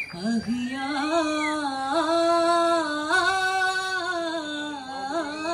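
A single voice singing a slow, drawn-out melody of a duffmuttu song, holding long notes that step up and down with ornamented bends, without drum strokes.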